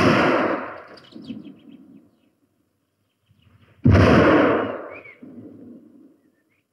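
Two pistol shots from antique long-barrelled dueling pistols: the first right at the start, the second about four seconds in, each with a long echoing decay of about two seconds.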